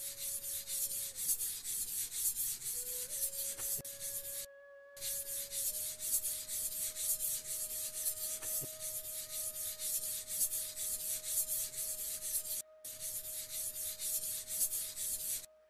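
Steel knife blade scraped back and forth on a wet #1000-grit Japanese water stone: a rapid, rhythmic run of strokes, two to three a second, pausing briefly twice.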